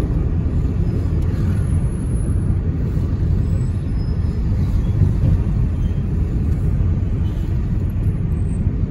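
Taxi driving in traffic, heard from inside the cabin: a steady low rumble of engine and road noise.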